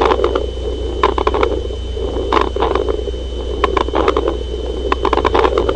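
Body sounds heard through a stethoscope during auscultation: clusters of sharp clicks repeating about every 1.3 seconds over a steady low hum, starting abruptly.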